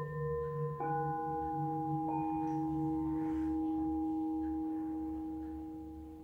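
Meditation background music: three bell-like tones, like singing-bowl strikes, sound about a second apart and ring on, slowly fading over a low steady drone.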